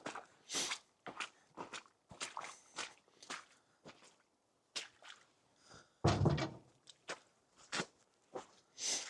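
Footsteps, irregular and crunchy, with one heavier thump about six seconds in.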